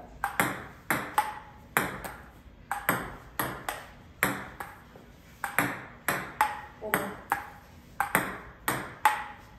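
Table tennis rally with a Stiga Performance paddle on chop strokes: a steady run of sharp ball clicks off paddle and table, about two a second, some bounces with a short ring.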